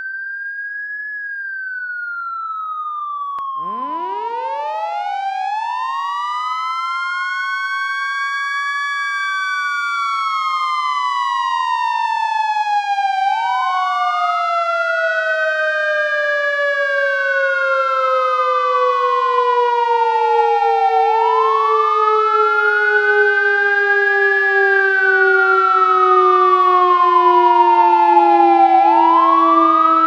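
Fire truck siren wailing, rising and falling about once every eight seconds. About three and a half seconds in, a second, lower siren tone climbs quickly, then slowly winds down. The whole gets steadily louder.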